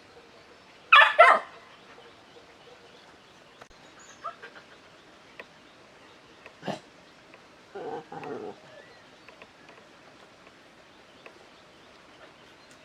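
A dog barking twice in quick succession about a second in, followed by a sharp click and then a quieter, lower pair of sounds about eight seconds in.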